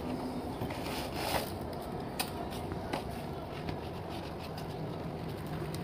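A few light clicks and handling sounds as a foot is worked into an inline skate boot, over a steady low background hum.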